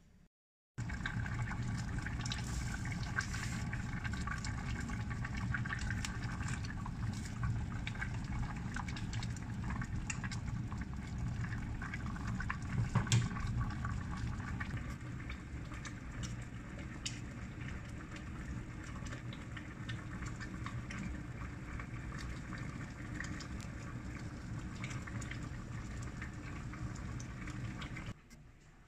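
A stainless steel pot of soup boiling on the stove, bubbling steadily with small pops and crackles. It starts about a second in and cuts off suddenly near the end.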